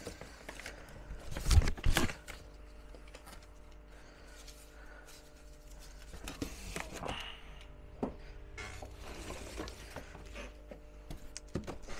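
Rummaging through and handling pieces of cardboard: a few loud knocks about a second and a half in, then scattered rustles and light taps.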